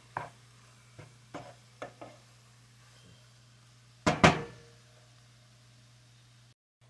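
Wooden spatula knocking and scraping against a nonstick frying pan of cooked minced pork as it is stirred: a few light taps, then two loud knocks close together about four seconds in. A low steady hum runs underneath.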